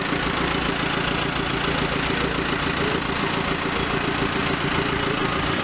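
A vehicle engine running steadily at an even pitch, with a low rumble underneath.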